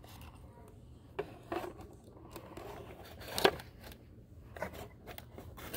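Small clicks and scrapes of plastic dollhouse toys being handled and moved, with one sharper click about three and a half seconds in.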